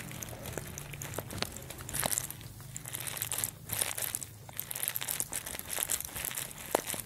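Lambs and goats feeding on dry grass, the hay rustling, crunching and tearing in irregular bursts as they pull and chew it.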